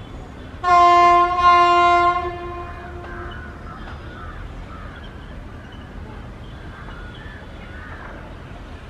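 Train horn sounding twice in quick succession about a second in, two loud sustained blasts with a brief break between them, then dying away; a steady low rumble continues underneath.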